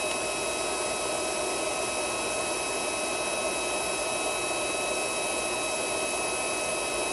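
1000 W handheld magnetic induction heater running while its coil heats a rusted bolt: a steady fan-like noise with thin, steady high tones over it.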